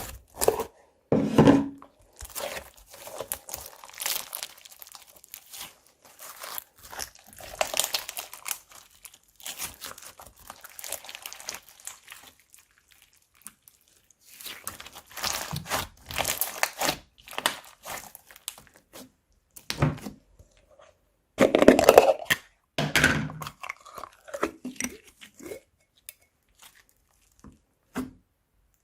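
Crunchy slime being squeezed and worked by hand, giving dense crackling and crunching in bursts. It pauses briefly about halfway, the loudest stretch comes later, and it thins to scattered clicks near the end.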